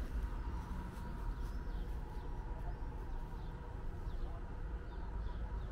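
Outdoor background: a steady low rumble with faint, short bird chirps scattered through.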